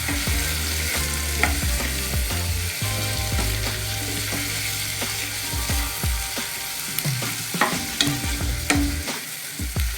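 Onion sizzling in hot cooking oil in a pan as it is stirred, with a few sharp scrapes of the spoon against the pan, most of them in the second half.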